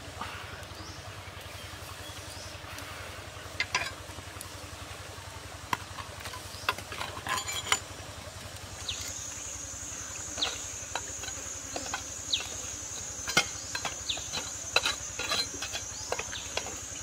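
Outdoor cooking handling: scattered light clicks and clinks of a knife and pan being worked, over a steady low background noise. From about nine seconds in, a steady high buzz joins.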